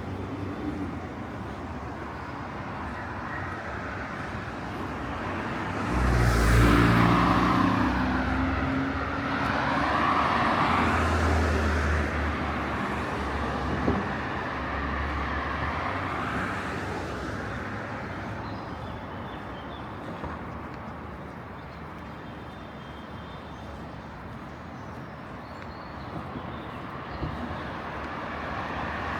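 Street traffic: cars passing, with one loud engine going by about six seconds in and another a few seconds later.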